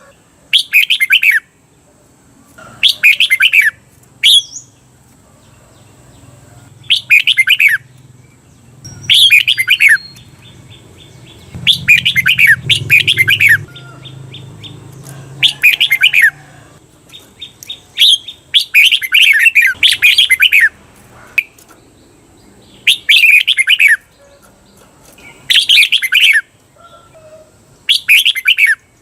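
Red-whiskered bulbul singing loud, short chirping song phrases every two to three seconds, some given twice back to back: the doubled 'เบิ้ล' song used to train caged bulbuls.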